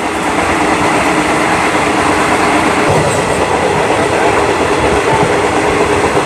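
Passenger train carriage running on the rails, a loud steady rumble and rattle of the wheels and carriage heard in the vestibule by the gangway.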